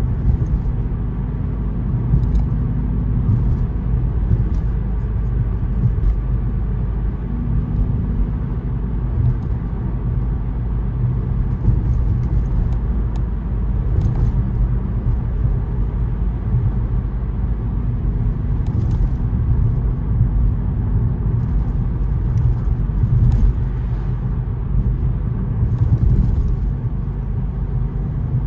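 Car on the move: steady low rumble of road and engine noise, with a few faint clicks.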